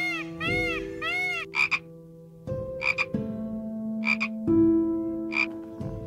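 Beluga whale calls: a quick series of rising-and-falling chirps, about three a second, then held whistles that shift pitch, with short squeaks about every second.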